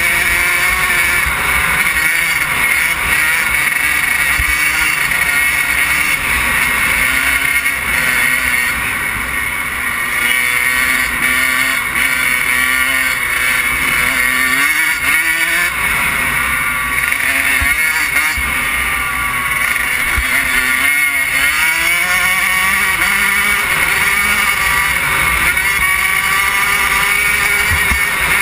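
Kawasaki KX100's two-stroke single-cylinder engine running hard under way, its revs rising and falling repeatedly as the throttle works, with steady wind rush over the microphone.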